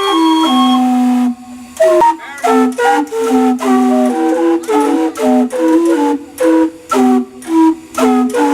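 Steam whistles blown as a tune, carousel-like: a held chord, then a wavering slide about two seconds in, then short stop-start notes stepping up and down in pitch.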